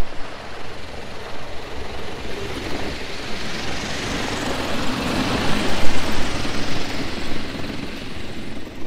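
MTT-154 electric tracked cargo vehicle driving past towing a loaded two-axle trailer: a rushing noise of its drive and rubber tracks on grass that swells to its loudest about five to six seconds in, then eases off.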